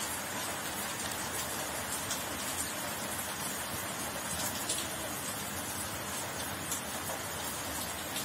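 Steady background hiss, with faint light scratches of a ballpoint pen writing on paper.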